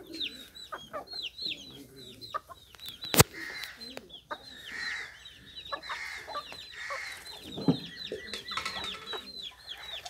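Young Aseel chickens clucking while they peck grain, over a near-constant stream of quick, high, falling chirps. A single sharp click about three seconds in is the loudest sound.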